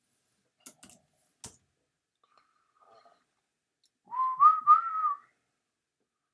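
A few soft clicks, then about four seconds in a person whistles a short phrase of about a second, one clear note that wavers up and down a little.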